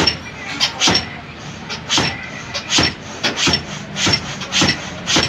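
Steel rack shaft of a power steering rack-and-pinion being yanked back and forth in its housing, giving a regular run of sharp metal knocks about two a second, some with a short high ring. The shaft is being worked loose past the oil seal that grips it.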